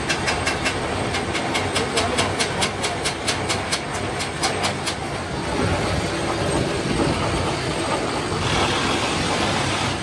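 Gear hobbing machine cutting teeth into a stack of steel motorcycle sprocket blanks, running steadily. A rapid rhythmic clatter of about five ticks a second for the first half gives way to a steadier grinding, which turns brighter near the end.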